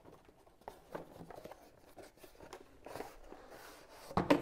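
Cardboard box and packaging being handled and opened: faint scrapes, rustles and light clicks of card, with a louder knock near the end.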